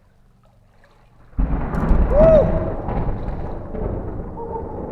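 A close thunderclap: a sudden loud crack about a second and a half in, followed by a deep rumble that slowly fades.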